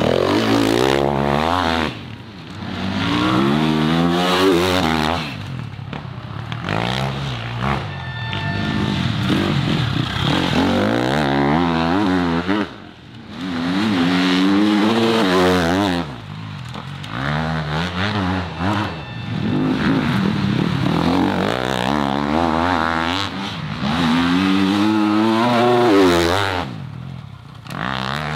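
Enduro dirt bike engines revving hard and easing off again and again as riders pass one after another. Each throttle burst rises and falls in pitch, with short lulls between bikes.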